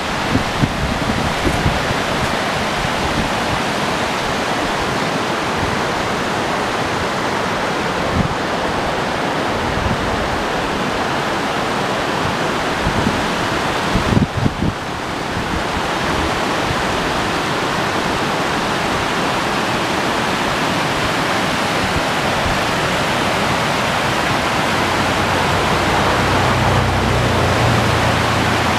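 A mountain river rushing over shallow rocky rapids: a steady hiss of white water. A few low thumps sound on the microphone, the heaviest cluster about halfway through.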